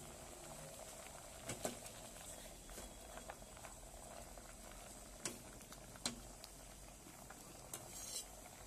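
Curry simmering at a low boil in a metal pot, a faint steady bubbling, with a few sharp knocks and a scrape of a metal ladle against the pot as it is stirred.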